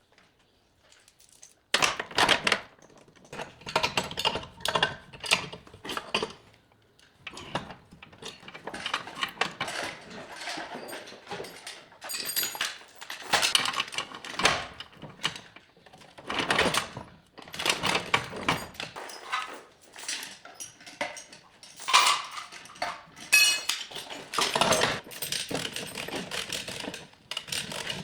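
Irregular metallic clinks, clanks and rattles of tools and metal car parts being handled, after a brief pause near the start.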